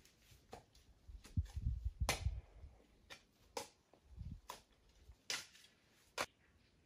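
Irregular sharp cracks and knocks, a dozen or so, with dull low thuds around the second and fourth seconds, from a person working by hand at a shelter.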